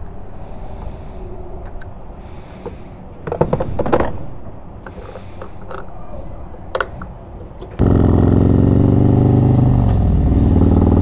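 A few clanks and knocks over a noisy background. About eight seconds in, the sound cuts suddenly to a Harley-Davidson Road Glide's Screamin' Eagle 128 V-twin running loud and steady at road speed, its revs dipping briefly and picking up again near the end.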